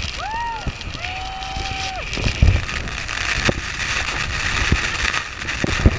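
Steady roar of Niagara Falls and its blowing spray, with wind buffeting the microphone in low thumps. A person's voice calls out twice near the start, the second call a held note of about a second.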